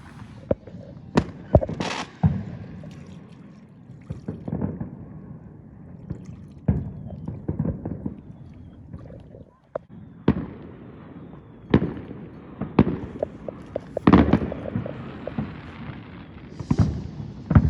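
Fireworks going off: a string of sharp bangs and cracks at irregular intervals, some louder than others.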